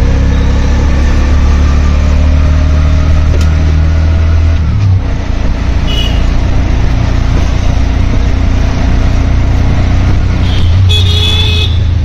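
Motor vehicle engine running loud and steady close by, its low hum shifting about five seconds in. There is a short high-pitched beep about six seconds in and a longer one near the end.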